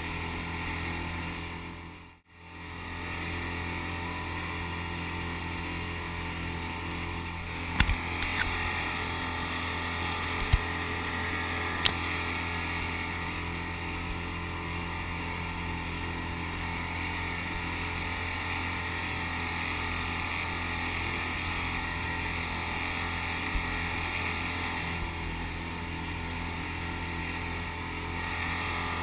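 Outboard motor of an inflatable boat running steadily at speed, a constant low hum with rushing water and wind noise over it. A few sharp knocks around the middle, and the sound drops out briefly about two seconds in.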